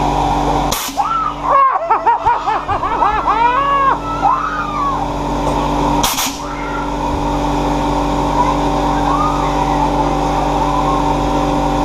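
Air cannon firing a short blast of air about a second in, followed by several seconds of a person's high, rising-and-falling screams, then a second blast about six seconds in, over a steady machinery hum.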